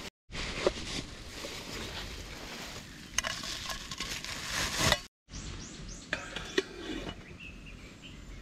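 Crinkling and rustling of plastic bubble wrap and a mesh bag being handled as aluminium camping pots are unwrapped, with scattered light clicks and knocks. About five seconds in it cuts off abruptly; after a brief gap come light clinks of the aluminium pots being handled.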